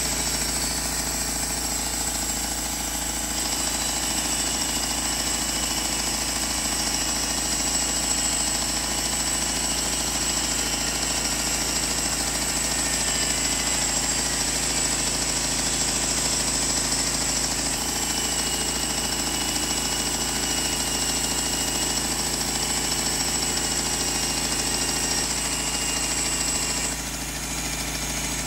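Homemade sawmill running, its engine droning steadily under load, with a short dip in loudness near the end.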